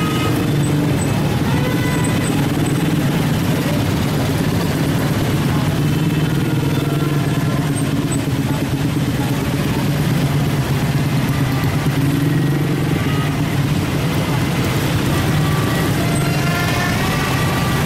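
Road traffic: vehicle engines running steadily, with scattered voices over it.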